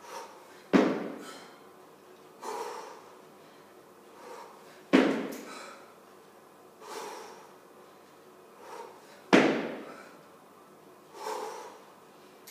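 A woman doing 18 kg kettlebell jerks: three loud, sudden sounds about four and a half seconds apart, each a forceful breath and the bell's jolt on one rep, with a softer heavy breath between each pair.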